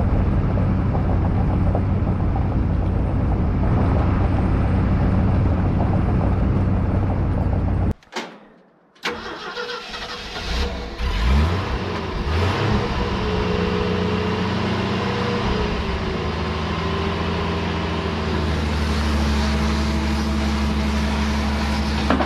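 Steady drone of a Duramax diesel pickup driving, heard from inside the cab. After a sudden cut, the engine of a Nodwell 119 tracked snow cat is started, revs up a couple of times, and settles into an idle.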